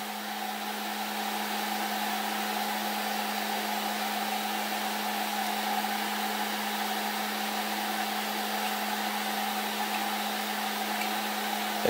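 Snapmaker 2.0 3D printer's cooling fans whirring steadily with a constant low hum while its nozzle heats toward 200 °C.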